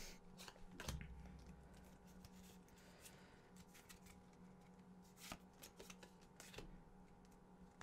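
Faint, scattered clicks and ticks of Pokémon trading cards being handled and slid from the front of the stack to the back, over a low steady hum.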